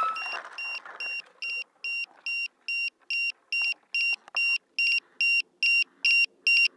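Electronic beeper aboard a small drone sounding a rapid, even string of two-tone beeps, about two and a half a second and growing louder, while the drone hangs caught in tree branches with its motors stopped. The beeps cut off abruptly near the end.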